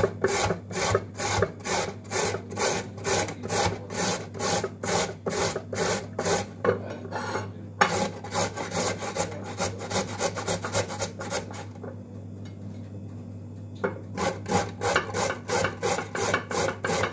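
Carrot being grated on a four-sided metal box grater over a plate: rhythmic rasping strokes about three a second, with two brief pauses, one before the middle and one a little after it.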